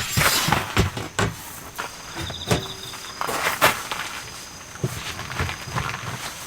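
Footsteps and irregular knocks and rustles of camp gear being handled. Insects are chirping, with a short pulsed high trill about two and a half seconds in.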